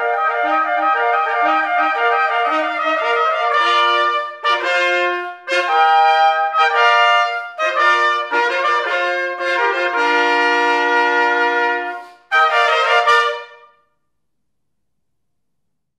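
A trio of trumpets plays the closing bars of a French hunting fanfare: quick, detached notes in three parts and a long held chord, then after a brief break a short final chord. The music stops about fourteen seconds in.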